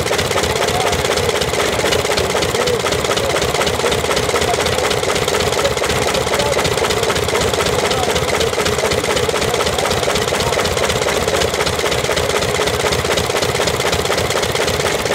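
Cutaway Ford four-cylinder side-valve engine running steadily.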